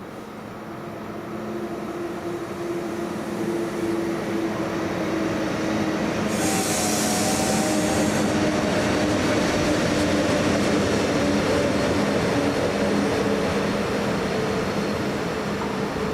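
Electric train running through the station, growing louder over the first few seconds and then holding steady, with several humming tones over the rumble of wheels on rail. A short high hiss comes about six seconds in.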